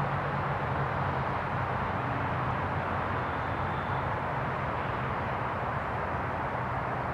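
Steady outdoor background noise: an even hiss with a low, constant hum underneath, unchanging throughout.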